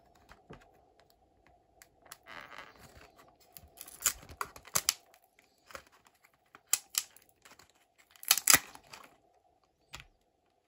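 Cardboard and plastic blister packaging of a Pokémon card collection box handled and pried at with the fingers: irregular clicks, scrapes and crackles, the sharpest snaps about four to five seconds in and again near eight and a half seconds.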